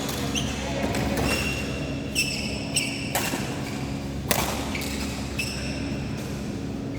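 Badminton play on an indoor court: several sharp hits, from rackets striking the shuttlecock and feet landing, and short high squeaks from shoes on the court floor, over a steady low hum.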